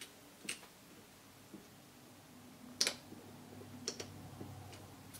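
A handful of small, sharp clicks and taps as a CR2032 coin-cell battery and the scope illumination knob's battery cap are handled and fitted by hand, irregularly spaced, the loudest a little past halfway.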